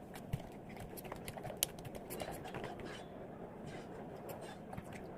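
Hands working wet clay in a container: scattered small clicks and taps, with one sharper tick about a second and a half in.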